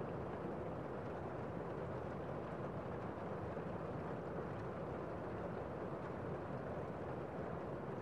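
Heavy rain heard from indoors: a steady, muffled hiss with little high treble and no separate drops or impacts standing out.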